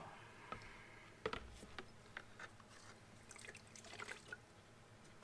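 Faint dripping and trickling as water and fuel drain from a mini excavator's fuel filter, with a few small ticks scattered through.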